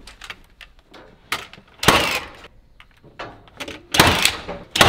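Framing nailer firing nails into framing lumber: three sharp shots, about two seconds in, about four seconds in and just before the end, with lighter clicks and knocks of the tool and board before the first.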